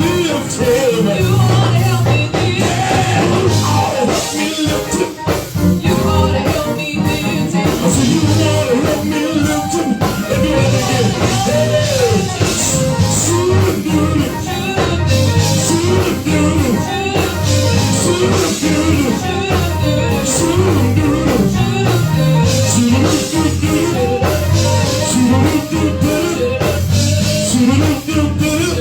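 A live church band playing a gospel praise break: a steady drum beat and bass line under a bending melodic lead, full and loud throughout.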